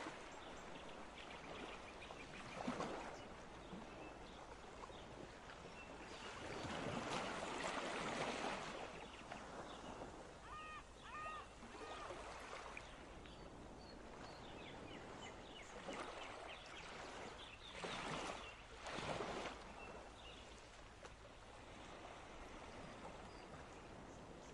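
Faint rushing, water-like noise that swells and fades several times, with a few short chirps about halfway through.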